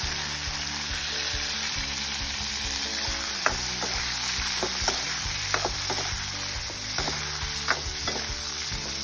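Rhino beetle larvae sizzling as they fry in hot oil in a wok, with a metal spatula stirring them. A few sharp clicks come in the second half as the spatula strikes the pan.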